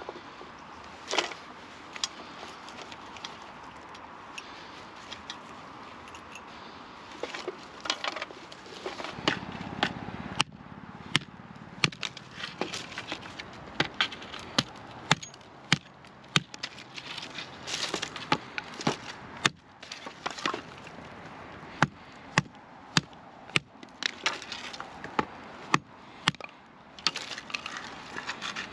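A string of sharp knocks and clacks at irregular intervals, at times several a second, over a steady outdoor background.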